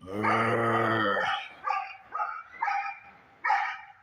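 A cow bellows once in a long, low, steady call lasting just over a second, followed by a dog barking four times in short, sharp barks.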